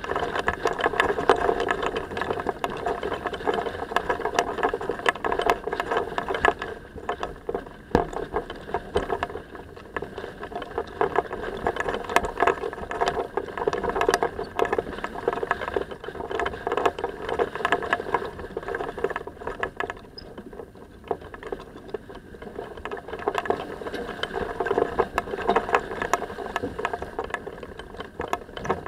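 Sailing yacht under way, heeled over: water rushing along the hull, swelling and easing every few seconds, with constant rattling and clicking close to the microphone.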